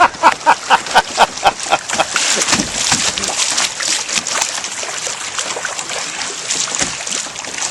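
Water splashing and rippling around a kayak running shallow riffles, with paddle splashes. In the first two seconds a rapid series of about ten short squeaky pulses, about five a second, sounds over the water.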